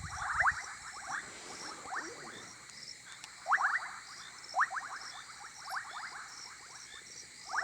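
Night chorus of frogs calling in quick runs of short rising notes, the callers taking turns and fitting their calls into each other's gaps, over a steady high trill of insects.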